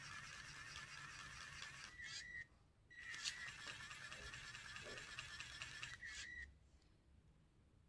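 Small electric motor driving a Lego pneumatic compressor, with a steady high whine and regular ticking from the pump strokes. It runs for about two seconds, stops briefly, then runs again for about three and a half seconds, building air pressure that raises the pneumatic gull-wing doors.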